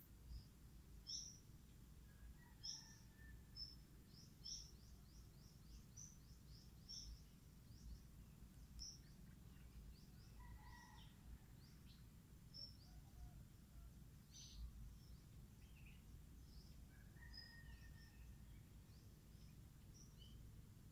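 Quiet outdoor ambience: faint birds giving many short, high chirps throughout, over a low steady rumble.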